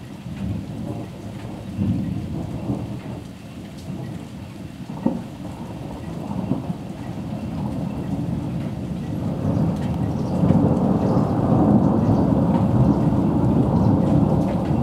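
Thunder rumbling through a thunderstorm, growing louder from about eight seconds in and at its loudest over the last few seconds, with rain falling in light scattered drops.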